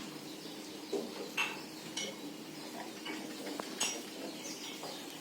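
A few light clinks and taps, as of small hard objects such as dishes or utensils being handled, over a low steady hum.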